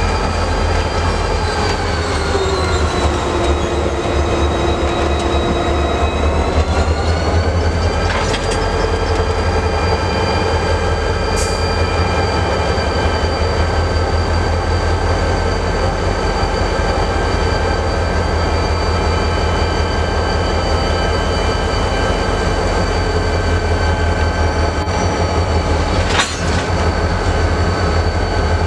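Train running with a steady pitched whine over a low rumble; the whine drops in pitch a couple of seconds in and climbs back a few seconds later. A sharp knock comes about eight seconds in and another near the end.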